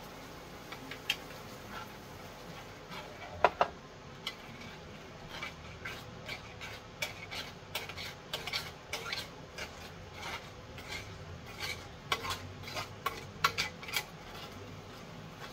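A utensil stirring and scraping gravy in a metal roasting tray, with irregular clinks and scrapes and one sharper clank about three and a half seconds in.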